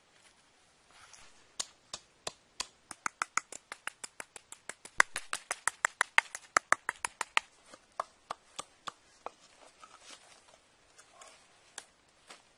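Wooden pestle knocking into a coconut-shell mortar, pounding chili and salt: a quick, even run of sharp knocks, about three to four a second, loudest in the middle, then slowing and stopping after about eight seconds.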